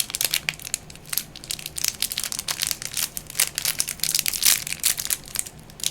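Crinkly plastic candy wrapper being handled and opened, a dense, irregular crackling that goes on throughout.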